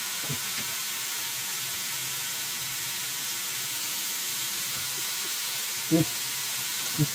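Breaded chicken strips frying in hot oil: a steady sizzle, with two short knocks near the end.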